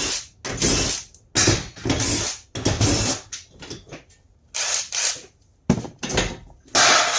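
Repeated short bursts of mechanical clattering and scraping, about eight in a row with brief gaps between them.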